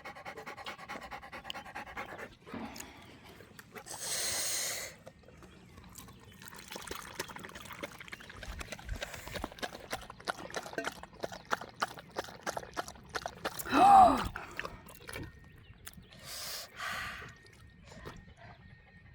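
A dog panting after a play session of fetch, with a few louder breaths and scattered small clicks. There is a brief, louder voice-like sound about fourteen seconds in.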